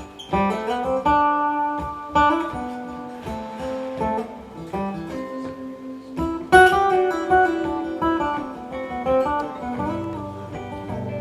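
Guitars playing an instrumental break: a lead line of single picked notes, sliding upward into a note just after the start, over strummed acoustic guitar chords.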